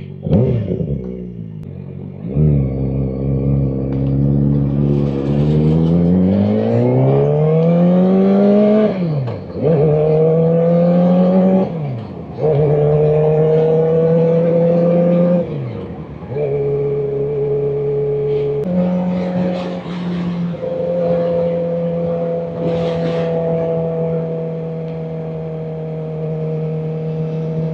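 Kawasaki Ninja ZX-4RR's 399 cc inline-four accelerating through the gears. The engine note climbs, drops sharply at several upshifts, then settles into a steady cruise for the last several seconds.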